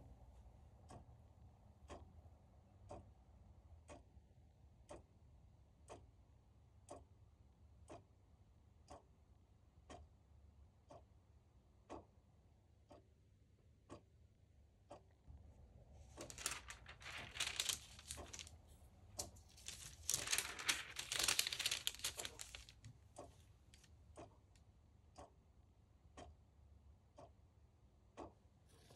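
A clock ticking steadily, about two ticks a second. From about halfway through, several seconds of tissue wrapping paper rustling and crinkling as it is handled; this is the loudest sound.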